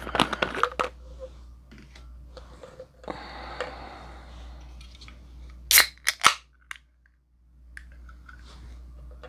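Soda can being cracked open: two sharp snaps of the pull tab in quick succession, followed by a smaller click.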